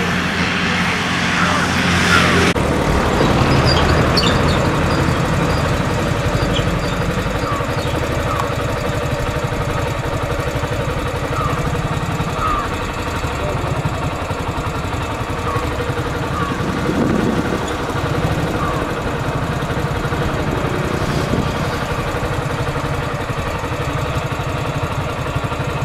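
Vehicle engine running steadily while moving, heard from on board with road and wind noise.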